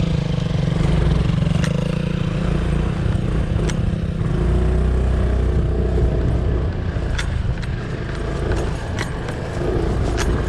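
Motorbike engine running while being ridden, its pitch shifting with the throttle, with scattered clattering knocks.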